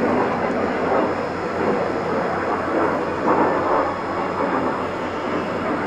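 Jet noise from the Kawasaki T-4 trainers of the Blue Impulse team in flight: a steady rushing sound that swells a little now and then.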